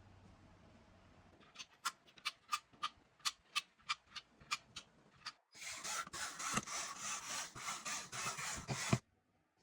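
Hands working on PC hardware: a run of about a dozen sharp clicks, roughly three a second, then a rough scraping rub for about three seconds that stops suddenly.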